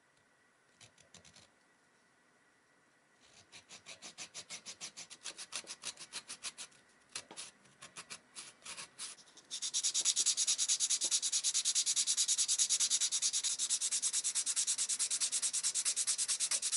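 Small hand fret saw cutting a small wooden lure blank in quick, even strokes, about five a second. About halfway through this gives way to a louder, faster, continuous rasping as the wooden blank is sanded by hand.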